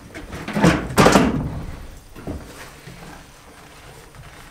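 Wooden roof truss knocking against the wall framing as it is pushed into place by hand: two loud wooden knocks close together about a second in, then a lighter knock after two seconds.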